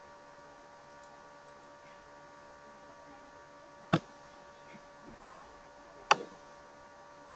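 Two sharp mouse clicks, about four and six seconds in, over a steady electrical hum.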